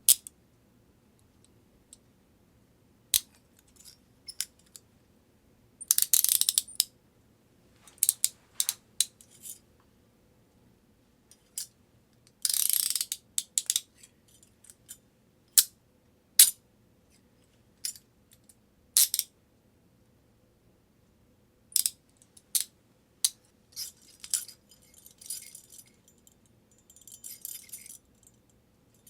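Metal handcuffs clicking, clinking and rattling in a string of separate sharp clicks, with two longer runs of rapid clicks about six and about twelve seconds in.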